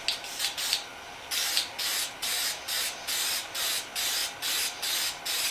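Spray can of clear lacquer hissing in short, evenly repeated bursts, about two or three a second, louder from about a second in after a few softer sprays, as a quick clear coat goes on.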